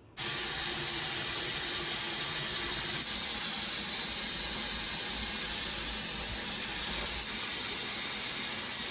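Water running from a kitchen tap into a sink: a loud, steady hiss that comes on suddenly.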